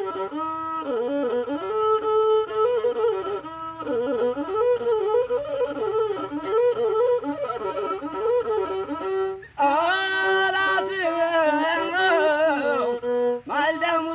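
Masinko, the Ethiopian single-stringed bowed lute, playing a wavering azmari melody. About nine seconds in the sound drops out briefly and comes back brighter and louder.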